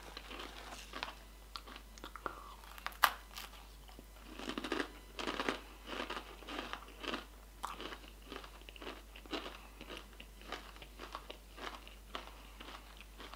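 Takis rolled corn tortilla chips being bitten and chewed in the mouth: a sharp crack about three seconds in, then a run of crisp crunching chews that gets softer toward the end.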